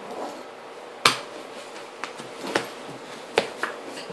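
A few sharp taps on a tabletop from cards and hands during play: a loud one about a second in, then three or four lighter ones.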